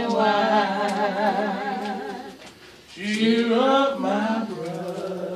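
Unaccompanied singing of a slow gospel hymn, with long held notes that waver. Two phrases are sung, with a short break about two and a half seconds in.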